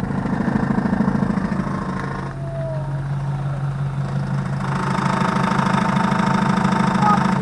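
Power steering pump on a 2005 Chevrolet Tahoe knocking rapidly over the idling engine while the brake pedal is pressed, loading the pump. The knock swells in two spells, over the first two seconds and again from about halfway. Swapping the valve and the steering gear has not cured it, so the owner suspects the new pump itself.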